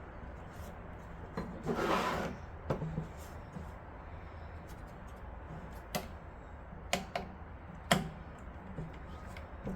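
Motherboard being screwed down into a PC case: a brief scrape about two seconds in and a few scattered light clicks and taps of the screwdriver, screws and metal parts.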